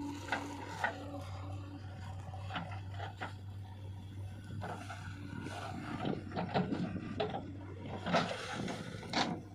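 JCB 3DX backhoe loader's diesel engine running steadily under a scatter of clanks, knocks and scrapes as the machine works mud, with the loudest knocks near the end.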